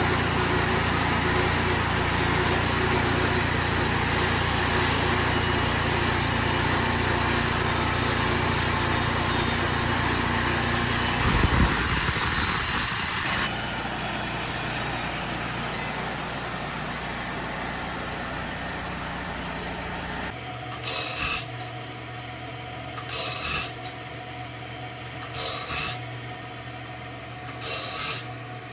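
Sawmill running, with the saw cutting through a red oak log as it is slabbed; it gets louder for a couple of seconds about eleven seconds in. About two-thirds of the way through it gives way to short scraping strokes on wood, about one every two seconds.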